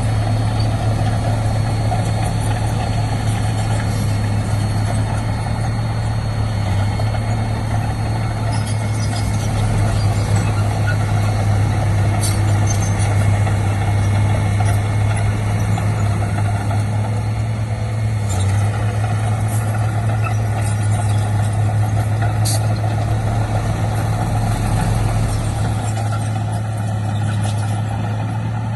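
Heavy diesel earthmoving engine running steadily under a constant low drone, with a few sharp clanks.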